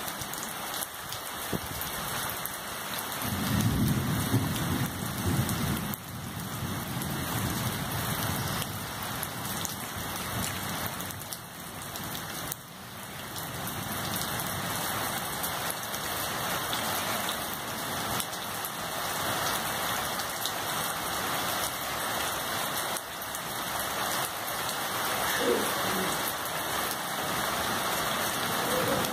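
Heavy rain falling steadily, with a low rumble of thunder from about three to six seconds in.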